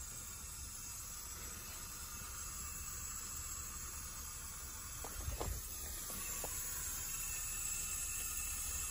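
Steady hiss of water flowing through the flow-test tubing and valves, slowly growing louder, with a few short knocks a little past halfway.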